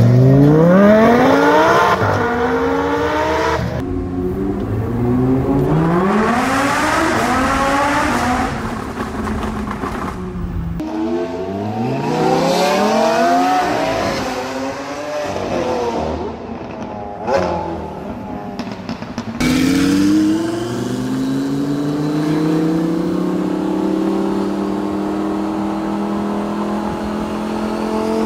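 Lamborghini supercar engines accelerating hard. The pitch climbs sharply through the revs and drops back at each upshift, again and again. The sound cuts abruptly between separate passes, and near the end a steadier engine note rises slowly.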